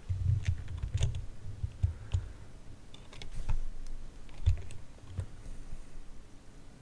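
Computer keyboard being typed on: irregular taps and clicks with some dull knocks, spread unevenly over several seconds.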